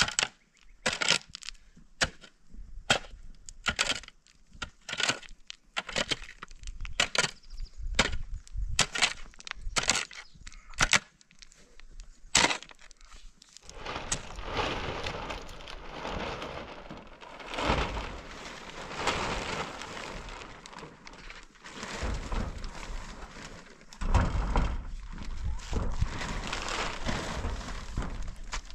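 Long-handled shovel digging stony soil: about two dozen sharp scrapes and knocks of the blade into earth and stones, roughly two a second. About halfway through these stop, and an uneven rustling crackle runs on instead.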